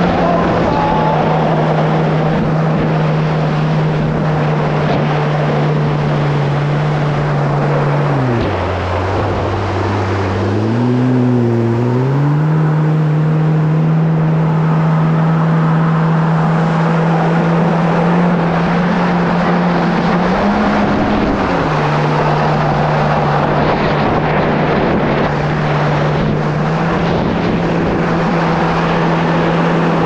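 Kawasaki SX-R 1500 stand-up jet ski's four-stroke inline-four engine running at a steady cruising pitch under a rush of wind and water noise. About eight seconds in the throttle comes off and the pitch falls, then climbs back over a few seconds. It rises briefly again around twenty seconds in.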